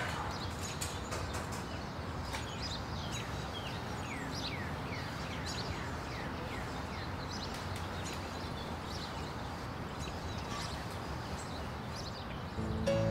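Small birds chirping, a string of short falling chirps over a steady background hiss of ambient noise.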